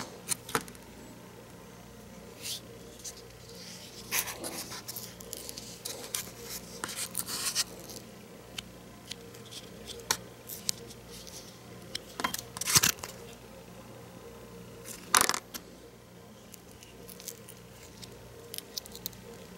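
Hands handling polyurethane sway bar bushings and working silicone grease into them: scattered light clicks, scrapes and rustles, with two louder knocks in the second half, over a faint steady hum.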